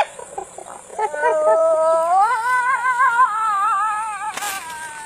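Hyena giving a long, wavering pitched call that rises in pitch partway through, with a brief sharp click near the end as another call begins.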